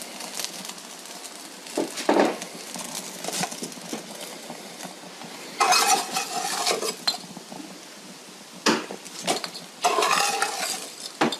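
Metal cookware clinking and scraping: scattered sharp clinks, with two longer scrapes about halfway through and near the end.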